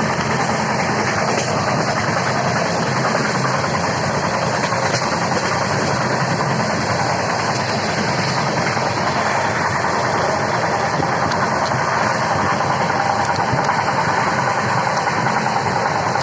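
Train running with a steady, unbroken noise and a low engine-like hum.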